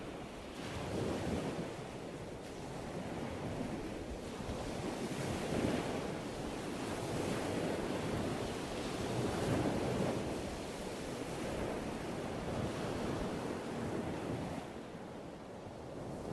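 Ocean surf: waves breaking and washing in continuously, swelling and ebbing every few seconds.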